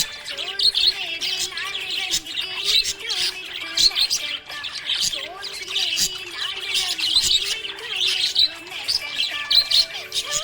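Budgerigar chirping and warbling, happy chatter of quick, overlapping high chirps and short glides that keeps going without a break.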